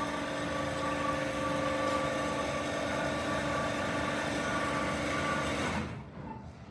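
Vacuum pump of a thermo-vacuum forming machine running with a steady hum, holding vacuum under a freshly formed ABS plastic sheet. Near the end it is switched off and winds down, sagging in pitch, then stops.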